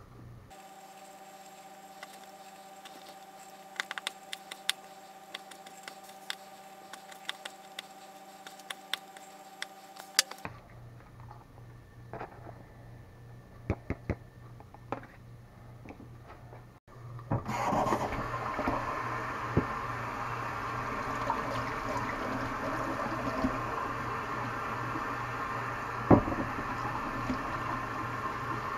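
A kitchen knife taps sharply and irregularly as it chops a habanero pepper on a paper plate, over a steady hum. About two thirds of the way through, a kitchen faucet starts running as hands are washed under the stream, and there is one sharp knock near the end.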